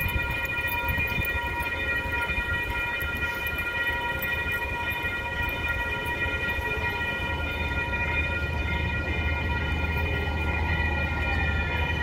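Railroad crossing warning bell ringing continuously while the signals flash, heard as several steady overlapping tones. From about halfway through, a low rumble grows louder as a trolley approaches.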